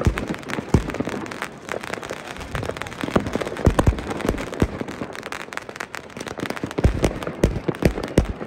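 Fireworks going off close by: a rapid, irregular crackle of pops with louder bangs scattered throughout.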